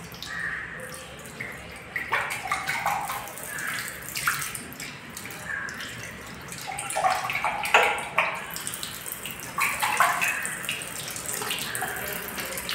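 Tap water running into a washbasin, splashing unevenly as hands work in the stream.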